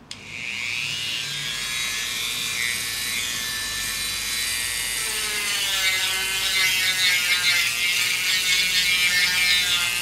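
Dremel rotary tool spinning up and running at high speed, its bit taking the sharp edges off a leather holster blank. The whine holds steady at first, then wavers and grows rougher from about halfway through as the bit bears on the leather.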